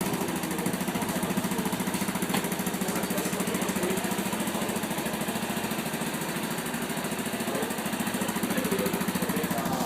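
Yamaha Ténéré 250's single-cylinder four-stroke engine idling steadily through a Roncar 2 Way aftermarket exhaust, an even pulsing beat.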